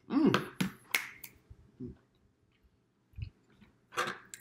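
Close eating sounds: sharp mouth smacks and clicks while chewing a bite of steak, with a brief voiced sound at the start. A metal fork clinks on the plate near the end.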